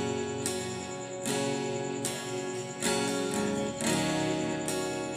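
Acoustic guitar strummed: chords struck about once or twice a second, each left ringing until the next.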